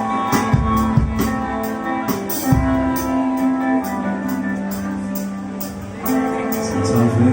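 Live band playing a song's instrumental intro: sustained guitar notes over bass, with drums keeping a steady beat, cymbal strokes about twice a second.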